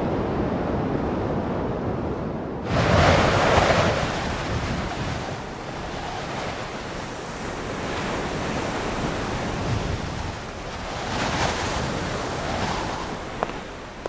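Rushing sea and wind noise, steady, with a louder surge about three seconds in and another swell near the end.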